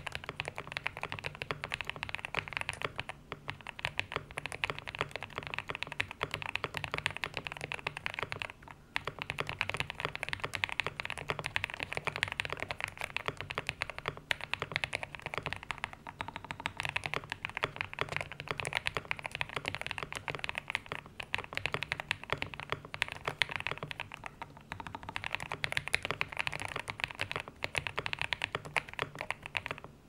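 Continuous fast typing on a GMK67 mechanical keyboard fitted with KTT Kang White linear switches and GMK Noel clone keycaps, with a three-layer tape mod and stock case foam: a dense stream of key clacks, with a brief pause about nine seconds in.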